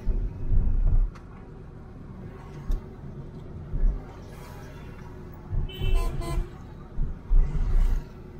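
Inside the cabin of a moving Ford Figo diesel: a steady low engine and road hum with repeated low rumbling thumps. A car horn toots briefly about six seconds in.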